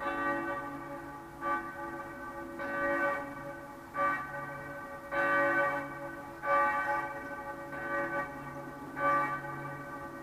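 Church bells ringing: a stroke about every 1.3 seconds, each ringing on in several tones over a steady low hum.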